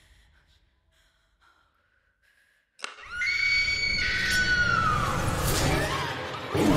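Near silence, then a sudden sharp hit about three seconds in and a loud, high-pitched scream that slowly falls in pitch, over a dense noisy soundtrack: a horror-film scare.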